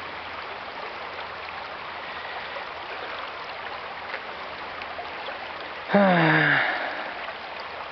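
River water rushing steadily. About six seconds in, a man gives a short wordless vocal sound that falls in pitch.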